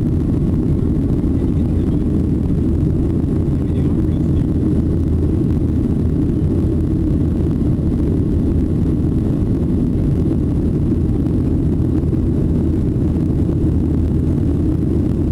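Steady low rumble of a Boeing 737-800's CFM56-7B engines and rushing air during the climb after takeoff, heard from inside the passenger cabin.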